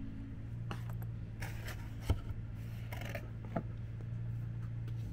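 Items being handled by hand: a few short rustles and sharp clicks, the sharpest about two seconds in, over a steady low hum.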